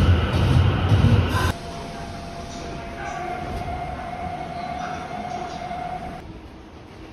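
A Nagoya Municipal Subway train rumbling loudly as it runs into the platform, cut off sharply about a second and a half in. It gives way to the much quieter sound inside the stopped car with its doors open, where a steady tone is held for about three seconds.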